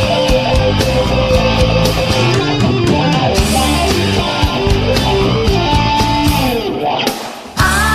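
Background rock music with electric guitar and drums; it drops away briefly near the end, then a new passage starts.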